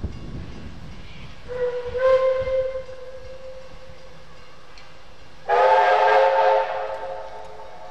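Steam whistle blasts: first one steady note held for about three seconds, then a louder, shorter blast sounding a full multi-note chord from the VR five-chime whistle fitted to Puffing Billy locomotive 12A.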